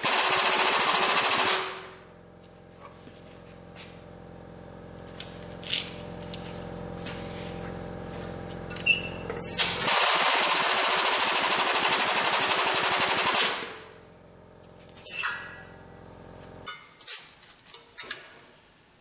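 A powered tube bender working a steel piece to its bend angle. A loud, fast-pulsing chatter from the bender's pump stops about a second and a half in and comes back for about three and a half seconds in the middle, with a steadier machine hum between. The hum cuts off near the end, followed by a few light knocks.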